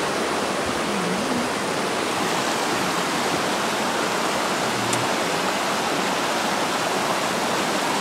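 A forest stream running over rocks: a steady, even rush of water.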